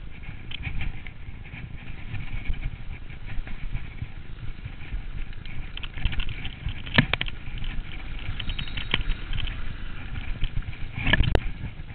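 Yeti 575 full-suspension mountain bike riding over a snowy, icy trail: a steady rumble of wind and tyre noise on the camera's microphone, with the bike rattling and clicking over the bumps and two sharper knocks, one about seven seconds in and one near the end.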